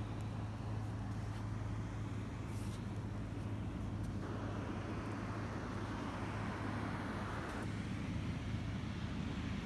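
Steady low hum of outdoor background noise, with a brighter hiss that swells for about three seconds in the middle.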